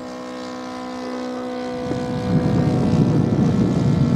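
Radio-controlled model airplane in flight, its motor and propeller droning on a steady pitch. About two seconds in, a louder, rough low rushing noise takes over.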